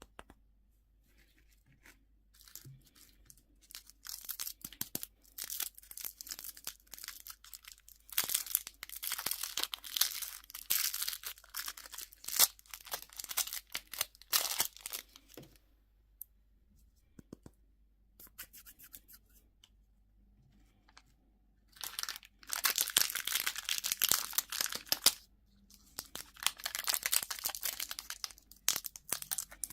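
Candy wrappers crinkling and tearing as they are opened by hand, in three spells of crackling with quiet pauses between them, the longest in the first half.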